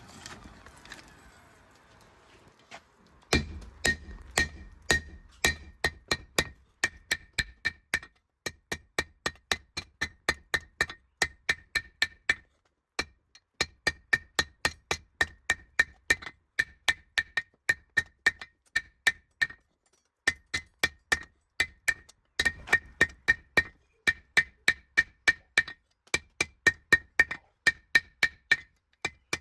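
Hammer blows on steel over an anvil, forging a spade drill bit: steady runs of about three strikes a second, each with a short bright metallic ring, broken by brief pauses.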